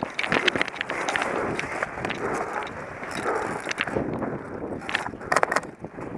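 Footsteps and rustling of a player moving through brush and leaves, with a quick run of sharp snaps from airsoft shots about five seconds in.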